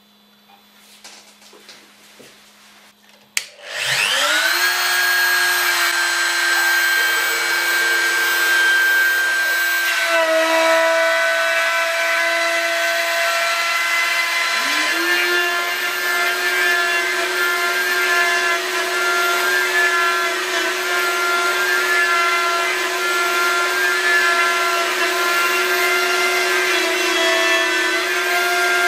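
A click, then a CNC router's spindle motor spins up with a rising whine and settles into a steady high whine as its end mill cuts a pocket into a wooden board. The pitch shifts slightly about ten seconds in and again near fifteen seconds in.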